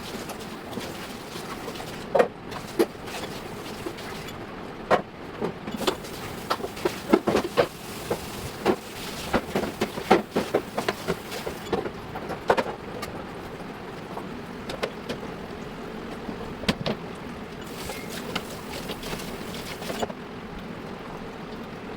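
Irregular clicks and light knocks of household items being handled and set down, dense through the middle and sparser near the end, over a steady background hum.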